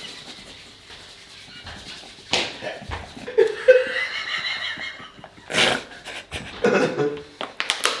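Two men laughing hard in short fits of wheezing, squeaky laughter and gasps, with quiet pauses in between.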